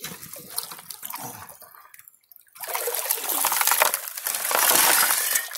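Metal shovel scooping creek gravel and rocks and tipping them into a plastic gold pan held in the water, with water sloshing and splashing. A short lull comes about two seconds in, then the loudest stretch.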